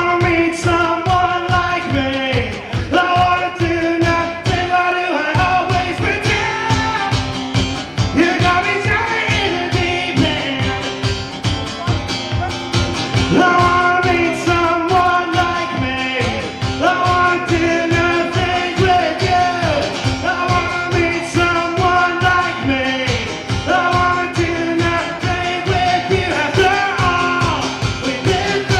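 Live band with a lead singer playing an upbeat country-rock song through a PA, over a steady drum beat and guitars.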